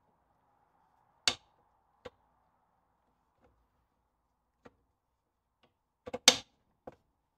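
Steel leaves of a Land Rover Series 2 leaf spring knocking and clinking as they are handled on a wooden workbench: a few separate sharp knocks, then a quick cluster of louder ones near the end.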